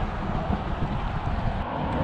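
Wind buffeting the microphone: a steady rushing noise with irregular low rumbling gusts.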